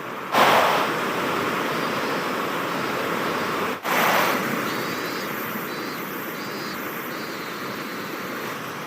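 Steady rush of a waterfall, with sudden jumps in loudness about a third of a second in and again at about four seconds, each easing off slowly.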